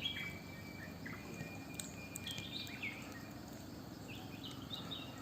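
Birds chirping faintly outdoors: short rising and falling calls, with a quick run of them near the end, over a thin steady tone in the first second and a half.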